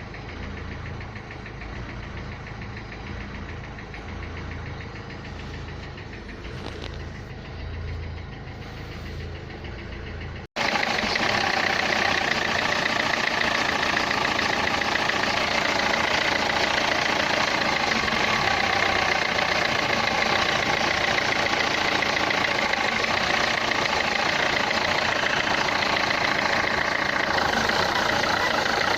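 Renault Clio III 1.5 dCi four-cylinder diesel engine idling with the noise that the title puts down to the injectors. About ten seconds in, after a brief cut, it becomes much louder and brighter, then runs steadily.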